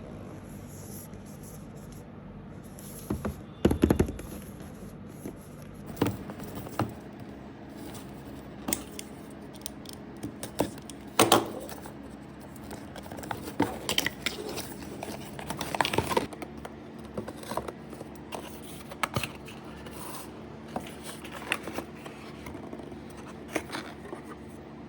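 Hands opening and handling a product's packaging: scattered clicks, scrapes and rustles, with the loudest knocks about four seconds in and again about eleven seconds in.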